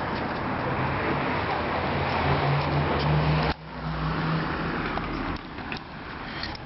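A motor vehicle passing on the street: engine hum and tyre noise build up, then cut off suddenly about halfway through, leaving quieter street noise with a few faint ticks.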